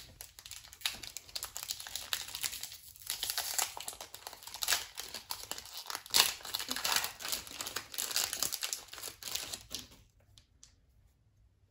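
Trading-card booster pack wrapper crinkling and tearing open in the hands, an irregular crackle lasting about ten seconds, then going almost quiet near the end.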